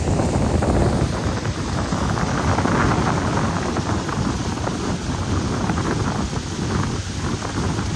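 Steady rush of wind buffeting the microphone of a speed boat under way on a river, a dense low roar with the boat's running noise beneath it.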